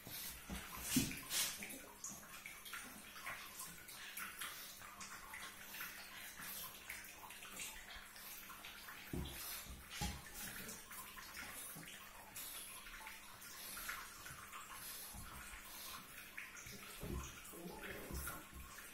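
Faint wet snuffling, licking and crackly fur-rustling from a ginger cat and a pug nuzzling and tussling, with a few soft thumps.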